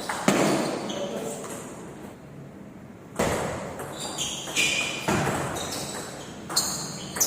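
Table tennis ball struck by paddles and bouncing on the table in a rally, a handful of sharp irregular hits ringing in a large hall, with a few brief high squeaks in between.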